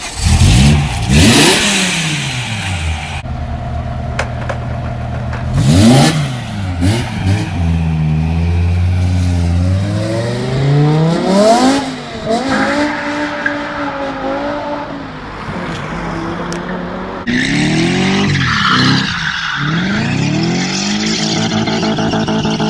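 BMW E30 3 Series engines revving hard, the pitch sweeping up and dropping back again and again, in a few short clips cut together.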